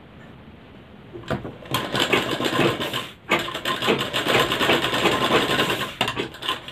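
Sewing machine stitching a seam across a joined cloth strip, a fast, even clatter of the needle running. It starts about a second and a half in, breaks off briefly near the middle, and stops shortly before the end.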